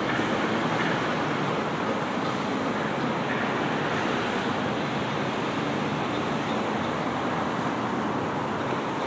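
Steady city ambience: an even rushing noise with no separate events standing out.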